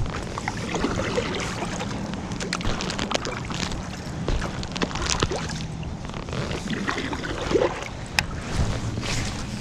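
Water and handling noise aboard a fishing kayak: a steady wash of sound with scattered small clicks and knocks of gear.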